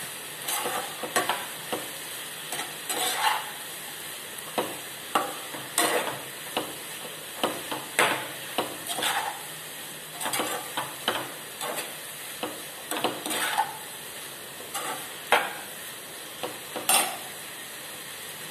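Perforated metal spatula stirring and scraping diced potatoes and tomato in a nonstick frying pan, over a steady sizzle of frying. The scraping strokes come irregularly, one or two a second.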